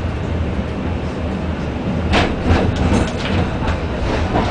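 Blackpool Balloon double-deck tram running along the track, heard from inside the saloon: a steady low rumble of wheels and running gear, with a few sharp knocks and rattles about two to three seconds in.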